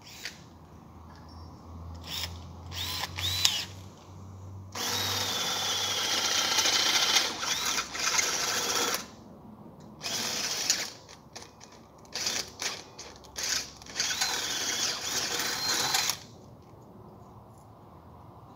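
Power drill boring into an aluminium door-rail profile, a notch cut-out in the bottom rail. It runs in a series of short bursts and two longer runs of several seconds, its motor whine dipping and rising as the bit bites into the metal.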